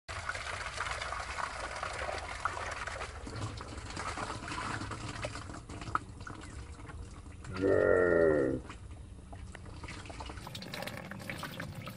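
Muddy water pouring and trickling out of an upturned plastic container into a wire basket of eels. A short, loud, wavering voice cuts in about eight seconds in.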